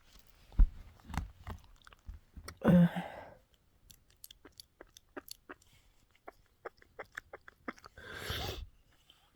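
Sounds of a person with a head cold: a loud nasal burst about three seconds in, a run of small wet clicks, and a breathy sniff near the end.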